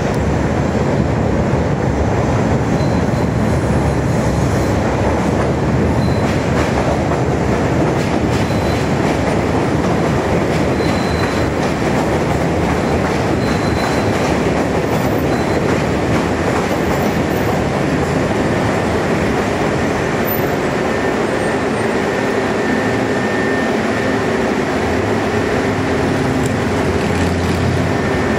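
Chicago "L" rapid-transit train running on the steel elevated structure overhead: a loud, steady rumble of wheels on rail that does not let up.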